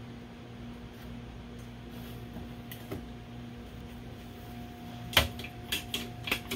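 Workshop handling noises over a steady low hum: a light knock as a motorcycle battery is set into its angle-iron battery box, then a sharp clack a little after five seconds in, followed by a run of lighter clicks and knocks.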